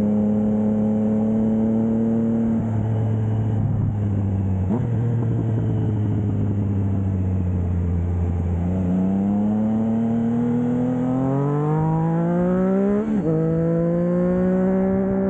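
Triumph Trident 660's three-cylinder engine breathing through a Blackwidow 200mm aftermarket exhaust while riding. The revs hold and ease off, then climb for about four seconds to a sudden brief dip in pitch about thirteen seconds in, and settle to a steady note.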